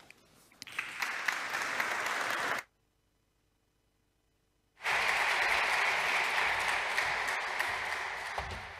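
Audience applauding a speaker called to the lectern. The sound cuts out completely for about two seconds in the middle, then the applause comes back and fades near the end.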